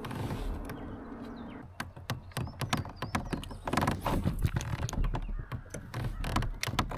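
A small bass flops and thrashes aboard a plastic kayak, making rapid, irregular knocks and taps. A steady low hum cuts off about a second and a half in.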